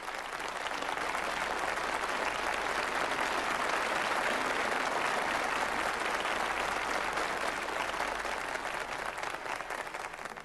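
Audience applause that builds over the first couple of seconds, holds, and fades away near the end.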